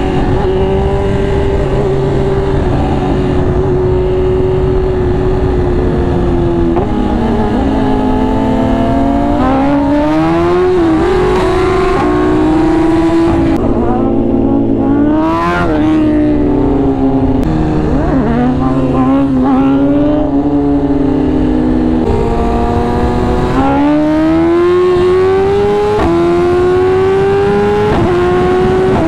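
Motorcycle engine accelerating hard through the gears: the revs climb and then drop back several times as it shifts up, over a steady low rush of wind noise.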